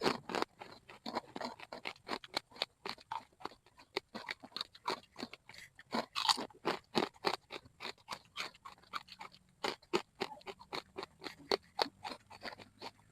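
Chicharon (fried pork rinds) being chewed close to the microphone: a rapid, irregular run of loud, dry crunches, several a second.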